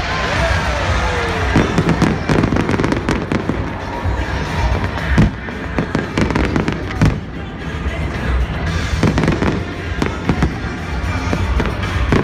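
Fireworks display: aerial shells bursting in quick succession, many sharp bangs and crackles throughout.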